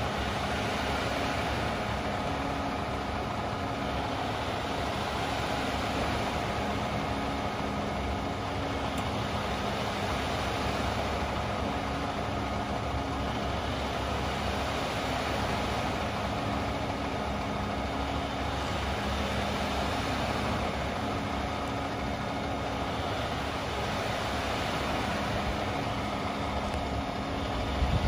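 Concrete mixer truck's diesel engine idling, a steady even running sound with a faint low hum that wavers in and out.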